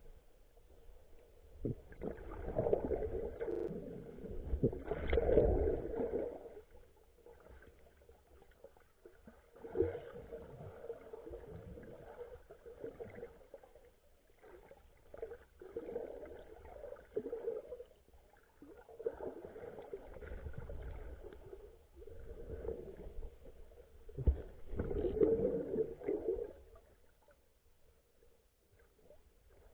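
Muffled seawater movement and gurgling heard underwater, rising in swells of a few seconds over a faint steady hum, with a couple of short knocks.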